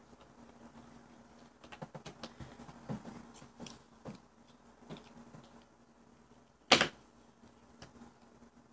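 Quiet handling of small items on a table: scattered light clicks and taps, with one louder short knock about seven seconds in.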